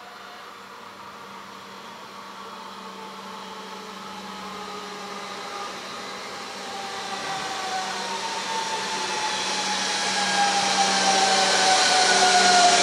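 Red DB Regio electric multiple unit pulling into the station, its traction motors whining in several tones that fall in pitch as it slows. It grows steadily louder as it comes close, with rushing wheel noise building near the end over a steady low hum.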